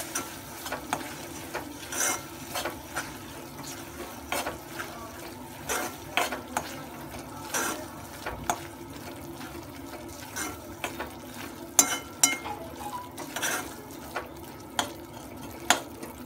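A metal spoon stirring and scraping around an aluminium kadhai, with irregular clinks against the pan, while the wet coconut-and-jaggery modak filling cooks with a light sizzle.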